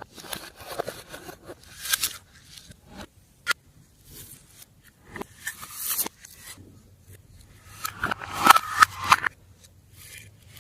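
Glossy slime being worked and mixed, giving irregular sticky crackles and clicks, with the loudest cluster about eight seconds in.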